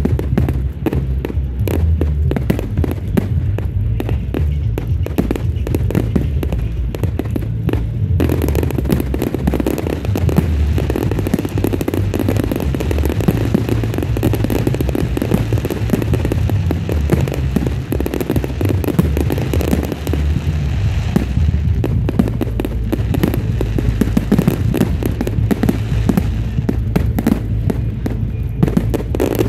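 Fireworks display: a dense, continuous barrage of aerial bangs and crackling, with no pauses. The crackle grows fuller and sharper about eight seconds in.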